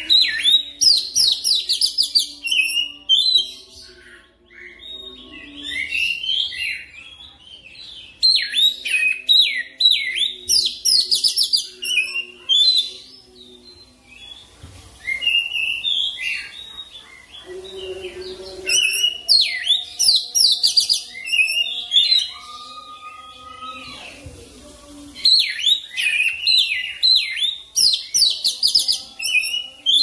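Oriental magpie-robin song: fast, varied whistles, chirps and trills delivered in four bursts of a few seconds each, with short pauses between them.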